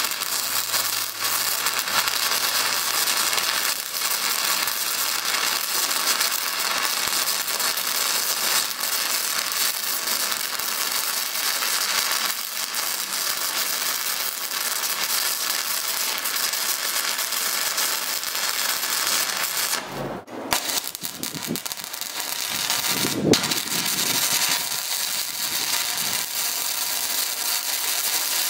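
Stick (SMAW) welding arc crackling and hissing steadily, powered by a Longevity LC-518D multi-process welder. About twenty seconds in the crackle breaks off for a moment, with a couple of sharp knocks, then picks up again.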